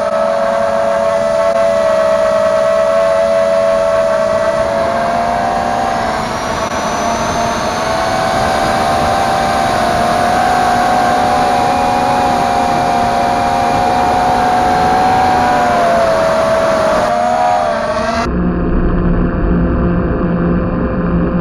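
Electric motors and propellers of a 260-size FPV racing quadcopter whining, the pitch rising and falling with the throttle. At about 18 s the sound turns suddenly muffled, with a low rumble.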